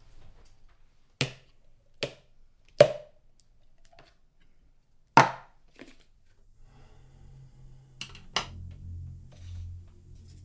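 Sharp knocks and clacks of a food can and a ceramic dish handled on a wooden countertop as dog food is served: four loud strikes in the first half, then two lighter ones. A low ambient music drone rises in the second half.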